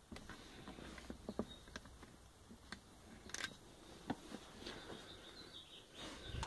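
Faint, irregular small clicks and taps of an L-shaped security Torx key and fingers working at the screws of a plastic seatbelt buckle cover, with a louder click near the end.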